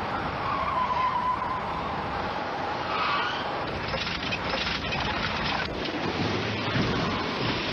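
A car driving fast on a highway: steady engine and road noise, turning rougher and gritty about halfway through as the tyres skid.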